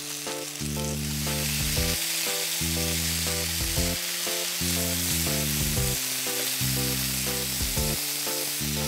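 Chicken thigh, sliced eggplant and tomato wedges sizzling in olive oil in a frying pan as they are stir-fried with tongs, over steady background music.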